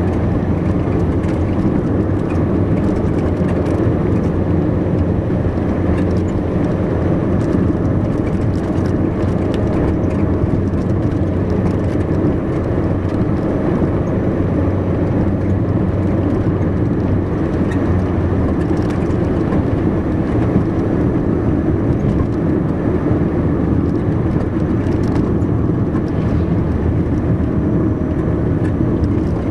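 Car driving at a steady speed: a steady low rumble of engine and tyres on asphalt, with a faint steady hum over it.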